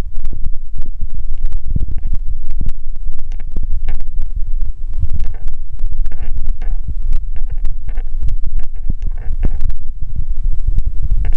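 Loud, steady low rumble broken by irregular thumps and clicks: wind buffeting and handling noise on a handheld camera's microphone as it is carried along at walking pace.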